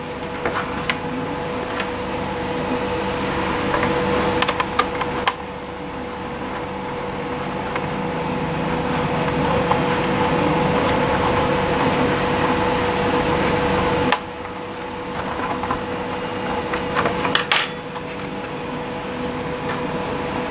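A steady machine hum with a strong single tone, dropping abruptly twice and creeping back up. Light clicks and knocks of 3D-printed plastic parts being handled and fitted together sound over it.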